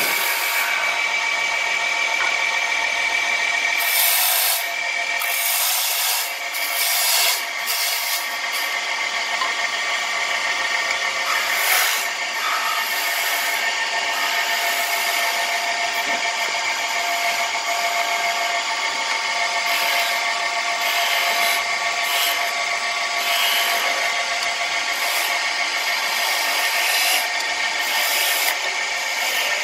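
A woodworking power tool runs steadily with a constant motor hum while its cutter scrapes and bites into wood in uneven bouts.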